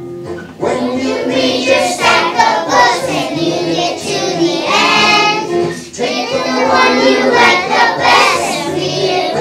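A group of young children singing a song together, starting about half a second in after a short break.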